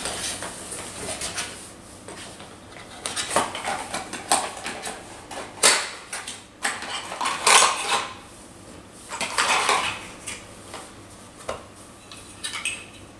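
Small hard plastic parts and a cardboard box being handled: irregular clicks, clatters and scraping rustles as a drone's wall charger and batteries are taken out of their packaging.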